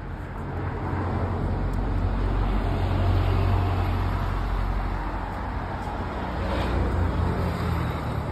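Road traffic on a city street: vehicles passing with a low engine and tyre rumble that swells twice.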